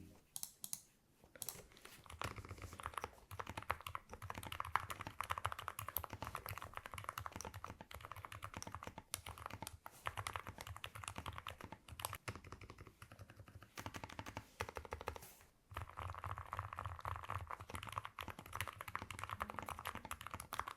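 Fast, continuous typing on a mechanical keyboard fitted with Kailh Deep Sea silent switches: quiet, damped keystrokes, with short pauses about a second in and again near fifteen seconds.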